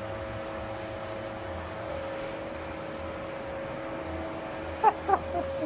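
Steady hum of powered-up CNC lathe machinery at rest, several constant tones over a low drone. Near the end come a few brief squeaky sounds.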